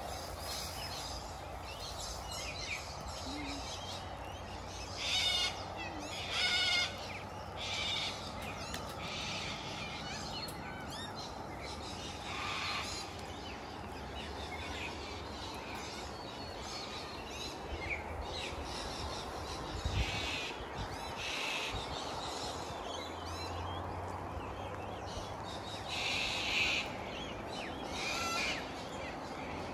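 Wild birds calling in short bursts of quick, chattering high notes every few seconds, over a steady low background noise.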